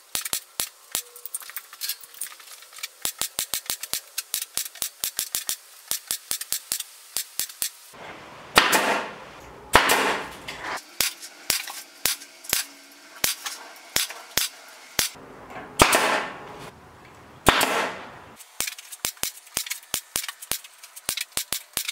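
Pneumatic staple gun firing staples through chicken wire into pine spindles, a sharp click several times a second, often two in quick succession. Four louder noisy bursts of about half a second each come in between, in the middle of the run and again later.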